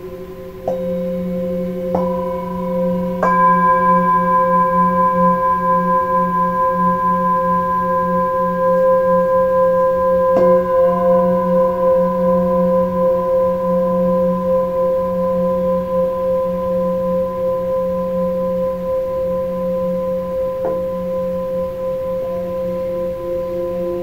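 Himalayan singing bowls struck one after another with a padded mallet, about five strikes in all. Each strike adds a long ringing tone that overlaps the ones still sounding, and the tones waver in a slow pulse.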